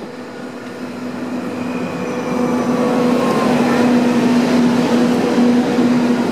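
Matterhorn Gotthard Bahn HGe 4/4 II electric rack locomotive No. 106 arriving and running slowly past close alongside with its train. It grows steadily louder, a steady electric hum over the running noise of the wheels.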